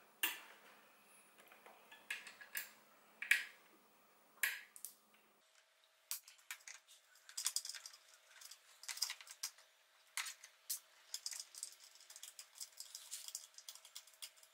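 Light clicks, taps and small metallic rattles of a metal mounting plate and its screws being worked loose by hand from behind a motorcycle's plastic side panel beside the radiator. A few separate clicks come first, then from about six seconds in a quicker run of small clicks and rattles.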